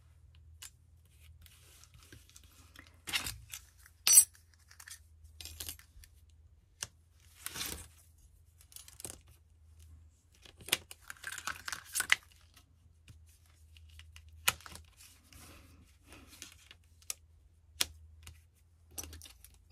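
Metal cutting dies, magnet sheets and storage pouches being handled and sorted: scattered rustles, clicks and taps, with a sharp ringing metallic clink about four seconds in.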